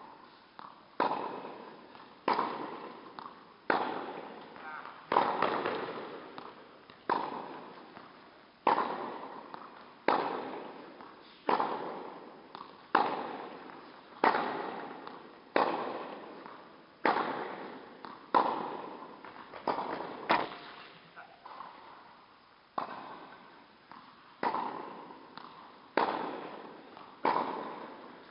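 Tennis balls struck by rackets in a steady rally, a hit about every one and a half seconds, each crack echoing through an indoor hall. There is a short break in the rhythm about two-thirds of the way through.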